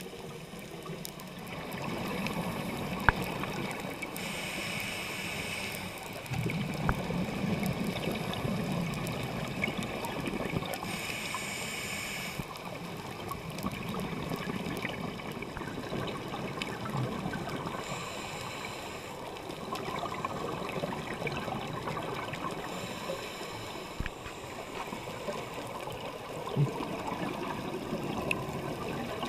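Scuba regulator breathing heard underwater: a hissing inhale every six or seven seconds, each followed by a bubbling rumble of exhaled air.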